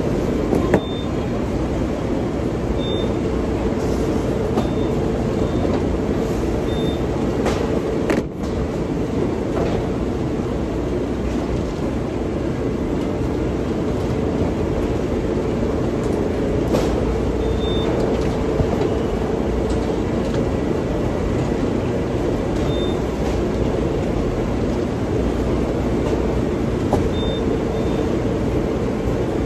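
Steady road and engine noise heard inside a moving car's cabin, with a low steady hum and a few faint short high beeps.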